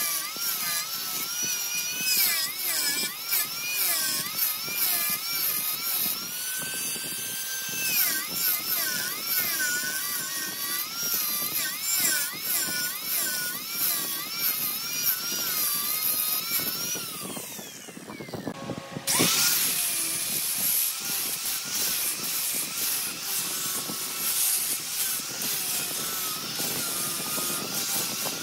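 Electric angle grinder whining as its disc grinds and sands wood turning on a lathe, its pitch wavering up and down as the load changes, over a rough grinding hiss. About 17 seconds in the whine falls away as the grinder spins down, and after a short drop another stretch of grinding with a sanding pad starts up.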